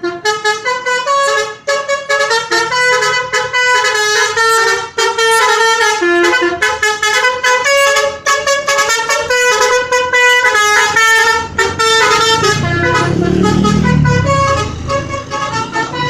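Basuri 'telolet' multi-tone bus horn playing a quick melody of stepping notes, the musical horn typical of Indonesian buses. About twelve seconds in, a lower tone rises and falls beneath the melody for a few seconds.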